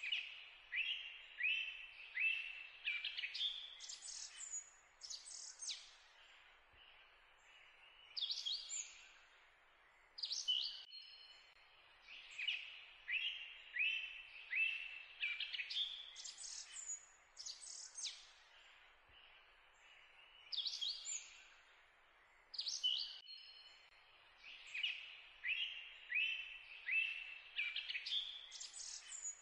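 Birds singing: runs of quick, high chirps, many of them falling in pitch. The same pattern repeats about every twelve seconds, as in a looped recording.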